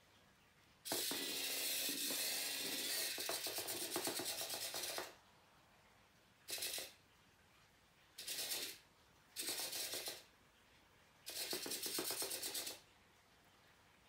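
Small geared servo motors of a micro:bit MOVE mini MK2 robot buggy driving its wheels in bursts, a fast ticking gear buzz. One long run of about four seconds, then four short runs.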